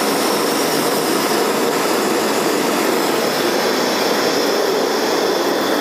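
Fire-Maple canister gas camping stoves (a titanium FMS-116T, an FMS-105 and a multi-power burner) burning at full flame, with a loud, steady rushing hiss.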